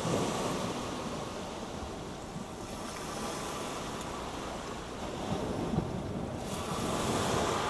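Small waves breaking on a shingle beach, a hissing wash of surf that swells near the start and again near the end, with wind buffeting the microphone.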